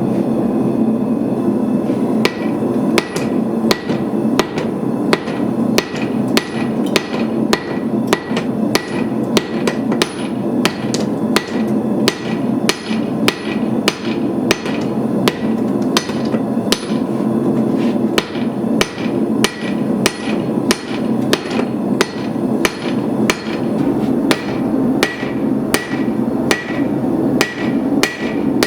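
Hand hammer forging a hot 1045 steel bar on an anvil by hand, striking about twice a second from about two seconds in, many blows with a short metallic ring. A steady rushing noise runs underneath throughout.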